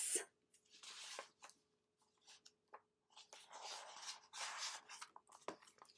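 Paper rustling as a page of a hardcover picture book is handled and turned: a few soft brushing rustles with some light taps.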